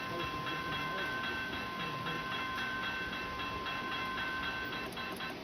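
Model train running on the layout: a steady electric-motor hum and whine from the running gear, the whine fading out about five seconds in.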